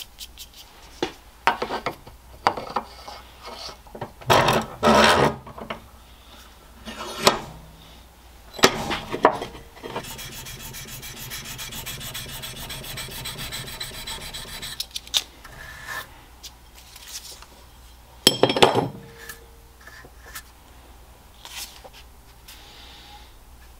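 Hand scraping and rubbing strokes on a steel knife blade clamped in a bench vise, in uneven bouts with a steady run of quick, even strokes in the middle, and louder bursts twice.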